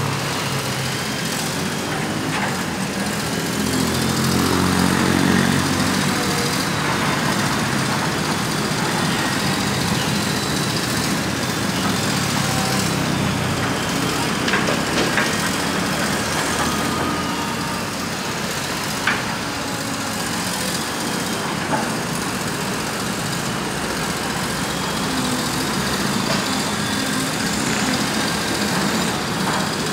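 Komatsu PC200 hydraulic excavator's diesel engine running under load, swelling about four seconds in, with a few sharp clanks later on.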